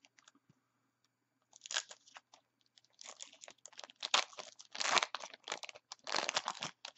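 Wrapper of a 2012 Bowman football card pack crinkling and tearing as it is opened by hand, starting about a second and a half in.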